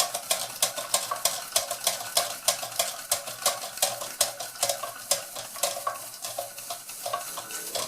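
Ernest Plank upright toy steam engine running under the load of a model water mill with a rapid clicking beat that slows and dies away near the end as the engine stalls. The owner thinks steam is leaking out of the top of the piston.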